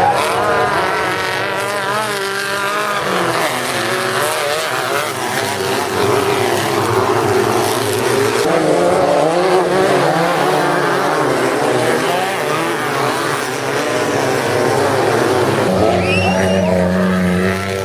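Off-road race car engines revving hard, their pitch rising and falling as the cars power through a dirt curve one after another. The engine sound changes abruptly twice.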